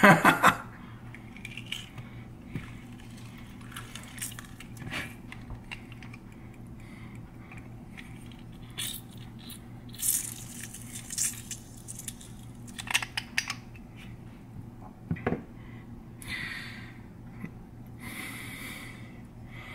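Hinged metal hand-held lime squeezer being worked over a plastic bowl. Scattered clicks and clacks come from the metal halves and the handling, with a few brief rustling squeezes as the lime is pressed and juice drips into the bowl. A faint steady low hum runs underneath.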